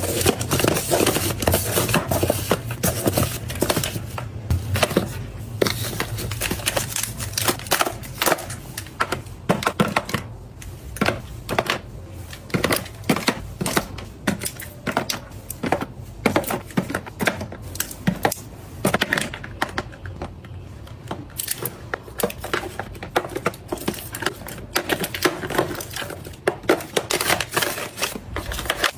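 Cardboard boxes of soap, then plastic bottles and tubes, being set and slid into a hard plastic organizer bin: rapid, irregular taps, clicks and knocks.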